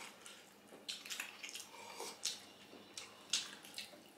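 Close-up eating sounds: soup slurped from a bowl and wet chewing, in irregular short smacks several times a second.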